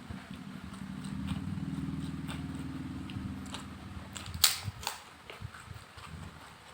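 Close-up eating sounds: chewing and wet mouth clicks over a low drone for about the first four seconds, then two sharp loud clicks about four and a half seconds in.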